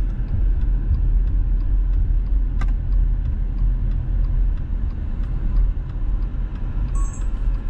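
Steady low rumble of road and engine noise inside a moving car's cabin, with a single sharp click about two and a half seconds in.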